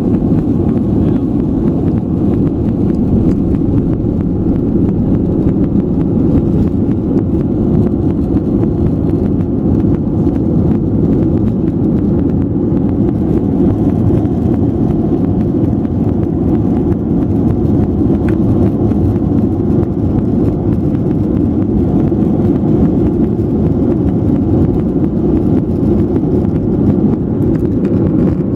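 Airliner taking off: a loud, steady low rumble of engines and rushing air that holds level throughout.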